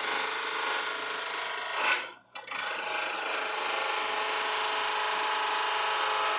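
Drill press running with a workpiece held against its spinning bit: a steady machine whine over a noisy hiss. The sound swells briefly about two seconds in, then drops out almost completely for a moment before it picks up again.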